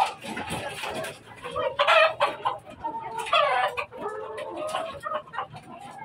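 Chickens clucking and calling, with louder drawn-out calls about two seconds and three and a half seconds in.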